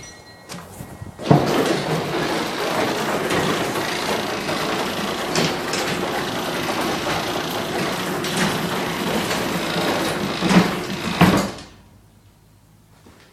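Garage door travelling under its opener for about ten seconds: a steady noisy run with scattered clicks, starting suddenly about a second in and stopping with two knocks near the end.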